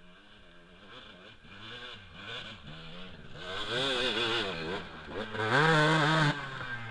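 Dirt bike engine revving up and down in uneven bursts under throttle on a steep dirt climb. It builds to a loud, held high rev about five and a half seconds in, then drops off sharply.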